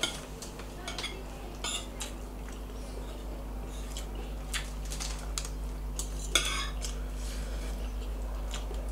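Forks and spoons clinking and scraping against plates as two people eat, with a few sharper clinks, over a steady low hum.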